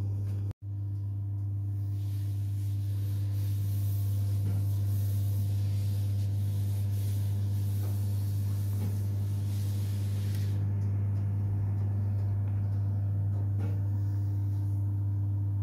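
Electric oven running while baking: a steady low hum, with a faint airy hiss joining from about two seconds in until about ten seconds in.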